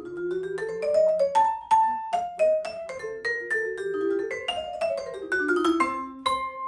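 Vibraphone played with mallets, a quick melody of many struck notes on its metal bars. About six seconds in it ends on a final struck chord that is left ringing.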